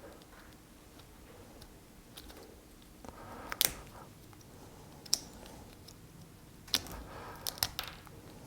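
Scattered sharp clicks and light knocks of small metal banana-plug parts and tools being handled and tapped at the bench: about five, with two close together near the end.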